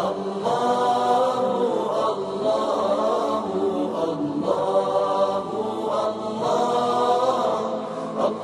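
Voices chanting an Arabic devotional song (nasheed) in long, wavering held notes, the phrases breaking off about every two seconds.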